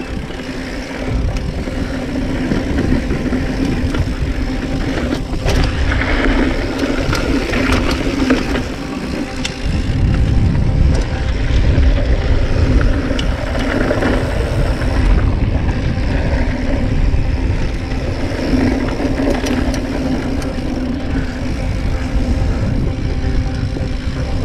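Wind rushing over the microphone and knobby tyres rumbling over a dry dirt trail as a Yeti SB 95 mountain bike descends at speed. The low rumble grows louder about ten seconds in.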